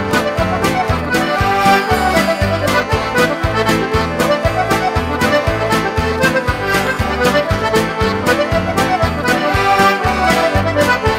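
Button accordion playing a lively traditional Newfoundland-style tune over a steady beat.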